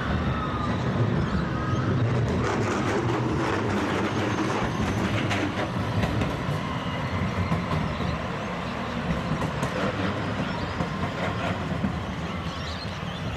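A modern low-floor electric tram passing close by, its wheels rumbling and clicking on the track, then fading slowly as it moves away.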